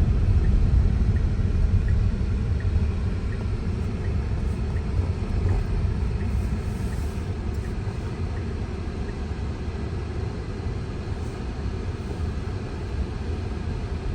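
Low, steady road and tyre rumble inside the cabin of a slow-moving Tesla electric car, with faint regular ticking in the first half.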